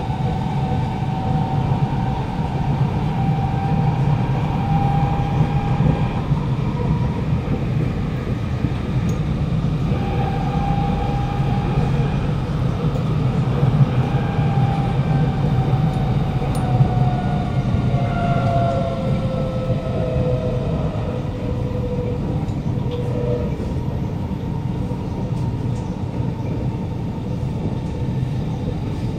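Onboard a KNS C751B metro train in motion: a strong whine from the traction motors, several pitched tones at once, over a steady rumble of wheels on track. About two-thirds of the way through, the motor whine falls in pitch as the train slows.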